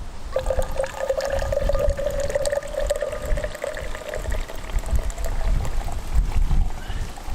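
Liquid poured into a mug in a steady stream. The pitch rises slowly over about five seconds as the mug fills. Low wind rumble is underneath.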